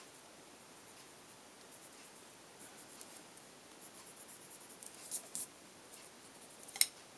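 Prismacolor colored pencil scratching across paper in short shading strokes, faint and stronger after about five seconds, with a single sharp tap near the end.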